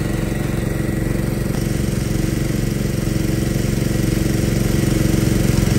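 Small petrol engine of a portable air compressor running steadily at an even speed while it pumps air through a hose into a low car tyre.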